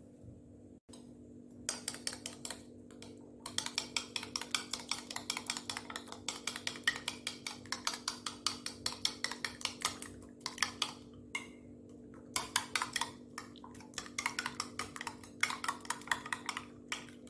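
A utensil beating raw eggs with chopped onion, leek, chili and salt in a bowl, clinking against the bowl in quick runs of several strokes a second, broken by short pauses.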